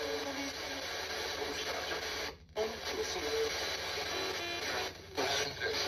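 Choppy radio static with short broken snatches of tones and voice-like sound, cutting out briefly twice, about two and a half and five seconds in.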